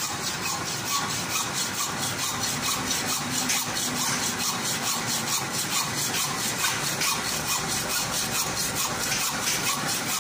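Metal lathe turning a steel screw conveyor shaft, the cutting tool scraping steadily against the spinning workpiece with a fast, regular pulse.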